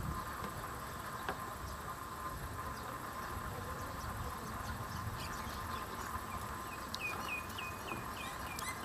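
Faint outdoor ambience with a steady high insect drone. About seven seconds in, a quick run of short chirps repeats about four times a second.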